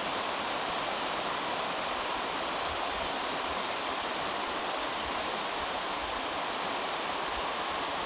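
Alpine mountain stream, the Bacherlochbach, rushing steadily over a bed of stones and gravel.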